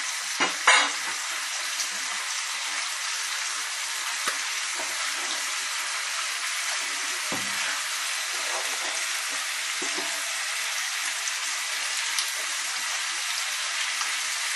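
Whole red peppers sizzling in a frying pan, a steady hiss. A pan lid clatters twice about half a second in, and there are a few light utensil knocks later.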